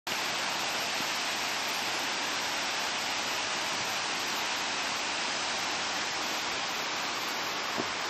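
Urami Waterfall's water falling in a steady, even rush.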